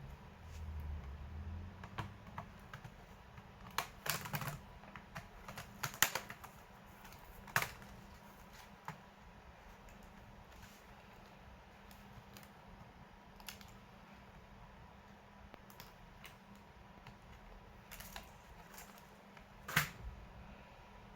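Scattered sharp clicks and taps on a laptop's plastic body and parts, a few seconds apart, with a small cluster early on and a louder one near the end.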